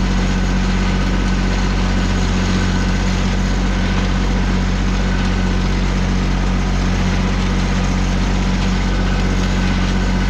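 An engine idling steadily at a constant speed, a low hum that does not rise or fall.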